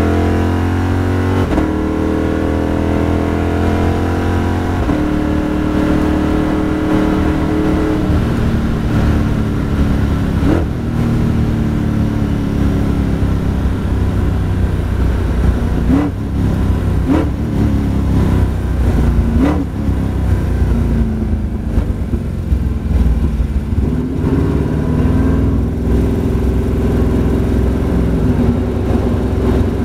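Sigma prototype race car engine heard from inside the cockpit: rising in pitch through upshifts early on, then running at part throttle, with several short sharp throttle blips on downshifts between about 10 and 20 seconds in, settling to a low steady run in first gear near the end.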